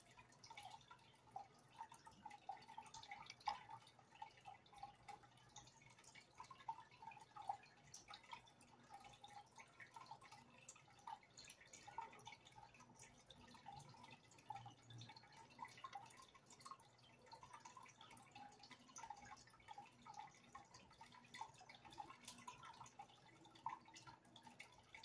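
Faint water dripping and trickling in a fish tank: an uneven patter of small drips with no steady rhythm.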